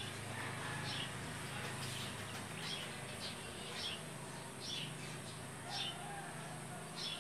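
A small bird chirping, short high chirps repeated about once a second, over a steady low hum.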